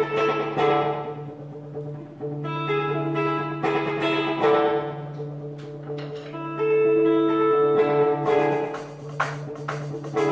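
Guitar music with sustained, ringing notes over a steady low drone, and a few sharp clicks near the end.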